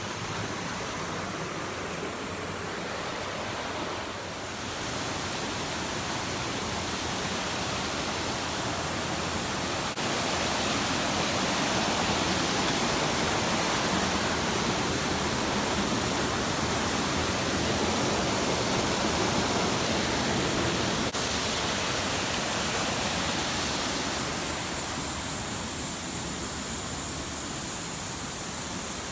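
Waterfall: a steady rush of falling water, louder through the middle stretch and easing a little near the end.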